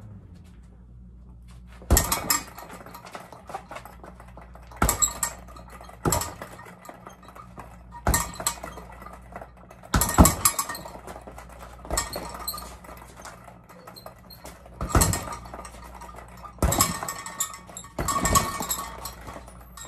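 Fists punching a double-end bag in bursts: each starts with a sharp smack and runs into a quick flurry of hits with clinking, about nine bursts a couple of seconds apart, over a low steady hum.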